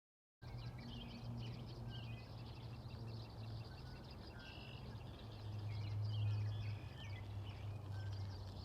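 Several wild birds chirping and singing, with many short calls and trills over a steady low hum, cutting in about half a second in.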